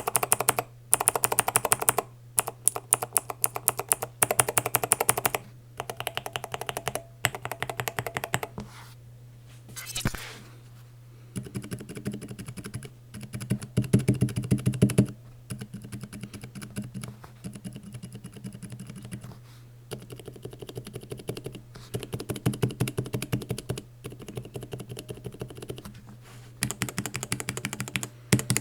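Rapid typing on a mechanical keyboard: dense runs of switch clacks in bursts of a few seconds, separated by short pauses, over a steady low hum.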